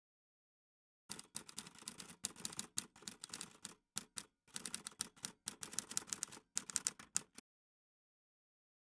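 Typing sound effect: a quick, uneven run of key clicks that starts about a second in, thins briefly near the middle, and stops about a second and a half before the end.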